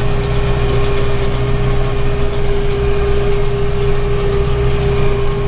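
Tractor engine running steadily under load while driving a round baler, with a steady hum held at one pitch over the engine drone.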